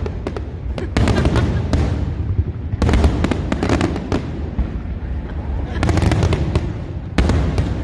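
Aerial fireworks going off in rapid clusters of sharp bangs and crackles over a steady low rumble.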